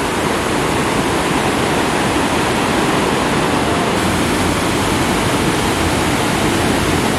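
A steady rush of fast-flowing river water, even and unbroken.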